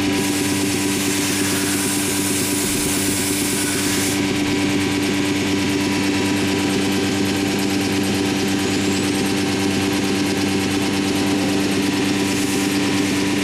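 Anderson Stratos Pro CNC router running: a steady machine hum made of several held tones, with a brighter hiss over it for the first four seconds and again briefly near the end.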